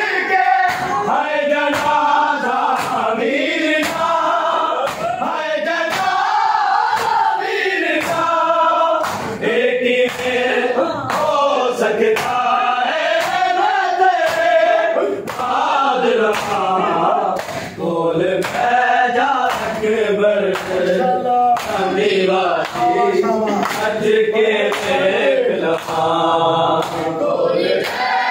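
A crowd of men chanting a noha together, with open-hand slaps on bare chests (matam) keeping a steady beat under the voices.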